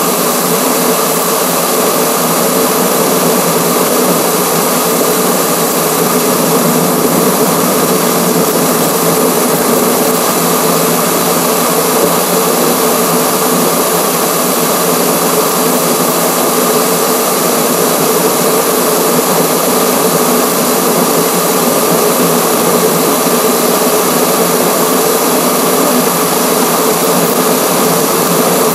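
Steady drone of wind, tyre and engine noise picked up by a camera on a car's front grille at highway speed, played back at six times speed so it sounds like a high, even whine.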